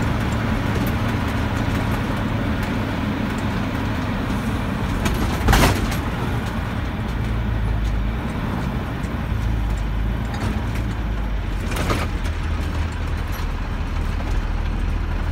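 Bus engine and road noise heard from inside the cabin while driving, a steady low hum. A sharp knock about five and a half seconds in, and a smaller one near twelve seconds.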